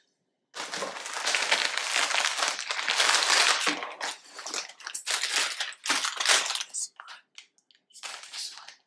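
A plastic Oreo cookie package crinkling as it is picked up and handled. It is a dense rustle for several seconds, then breaks up into scattered crackles near the end.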